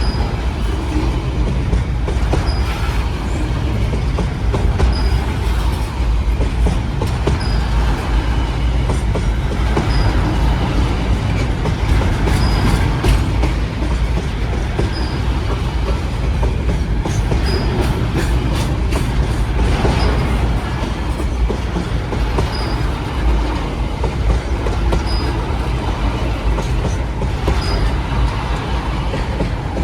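Freight train rolling past: the steady heavy rumble of wagons on the rails, with clusters of wheel clacks. A short high squeak repeats about every two and a half seconds.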